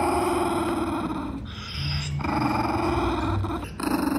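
A Pomeranian growling in long, rough stretches, broken by short pauses about a second and a half in and again near the end.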